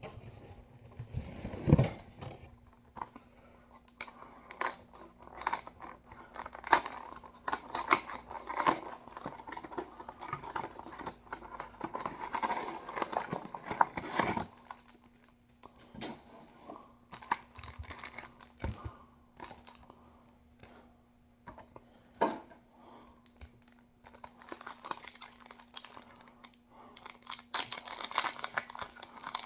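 Foil booster pack of trading cards being torn open and crumpled, with cards rustling and clicking as they are handled, irregular and busiest in the first half and again near the end. A faint steady hum runs underneath.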